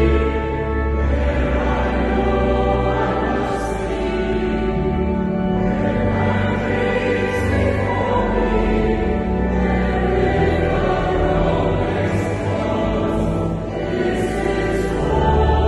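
Choir singing a slow song in long held chords, many voices in harmony.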